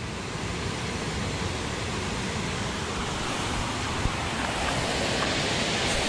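Fast creek current rushing steadily, growing slightly louder toward the end.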